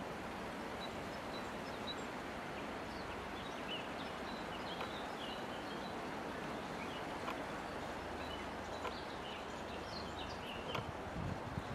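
Forest ambience: a steady rush of wind through the treetops, with small birds chirping faintly now and then. A few low bumps come near the end.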